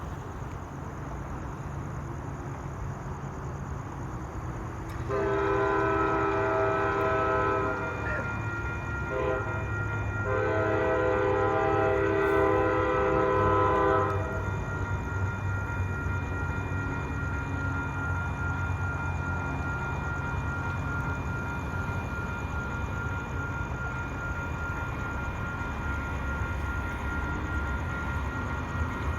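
Amtrak Texas Eagle passenger train's multi-chime locomotive horn sounding a long blast about five seconds in, then a second, longer blast, over the steady low rumble of the passing train.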